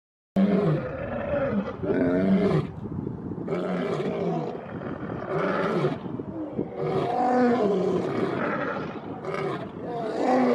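Male lion roaring, a series of repeated calls that starts suddenly about a third of a second in.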